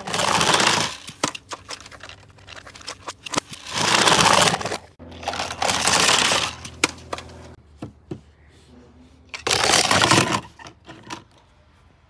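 Plastic toy cars rolling down a hard plastic playset ramp onto a plastic table, four rattling runs of about a second each, with clicks and clatters of the toys being handled between them.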